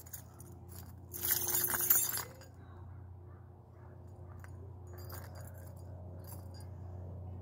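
A bunch of metal keys jangling and clinking, loudest for about a second shortly after the start, with a few lighter clinks later. Underneath, a low steady drone of an airplane overhead grows louder toward the end.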